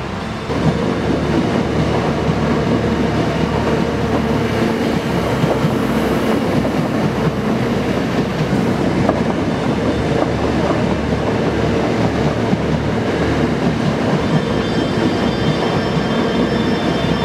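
Commuter train passing on the tracks: a steady rumble of wheels on rails with a clickety-clack rhythm, starting abruptly about half a second in. A faint high whine joins in the last few seconds.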